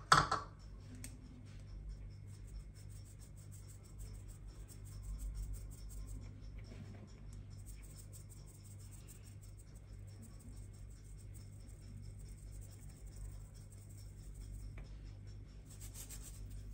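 Ninho powdered milk being sifted through a small hand-held wire-mesh sieve: a faint, rapid, scratchy ticking as the strainer is jiggled over the bowl, over a low steady hum.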